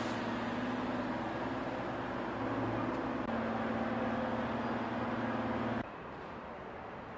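Class 504 side-contact electric multiple unit running slowly past, a steady rumble with a low hum and higher squealing tones from the wheels. About six seconds in the sound cuts suddenly to a quieter steady background.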